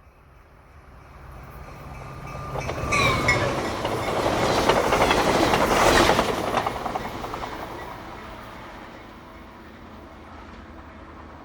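A train passing by: it builds from faint, is loudest about halfway through with wheels clattering rapidly over the rail joints, then recedes to a steady rumble.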